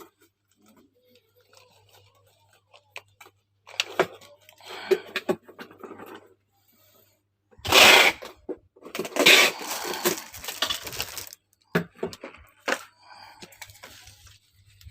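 Hands handling packaging and broken items: rustling and scraping with scattered light clinks and clicks, loudest in two bursts of rustling past the middle.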